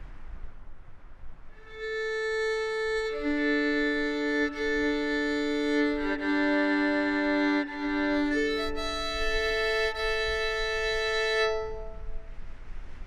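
Violin music: a slow passage of long held bowed notes, often two or three sounding together, coming in about a second and a half in and dying away near the end, over a faint low rumble.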